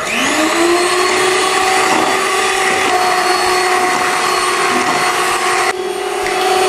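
Electric hand mixer with wire beaters whisking batter in a stainless steel bowl. The motor spins up with a rising whine as it is switched on, then runs at a steady pitch.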